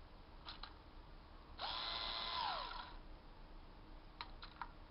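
Small cordless screwdriver with a revolver bit magazine running briefly, its motor spinning up to a steady whine for about a second and winding down. A couple of sharp plastic clicks come before the run and a quick series of clicks near the end as the tool is handled.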